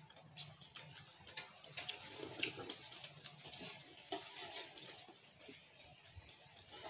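Faint, irregular clicking and ticking of people eating with their hands, picking food apart and chewing.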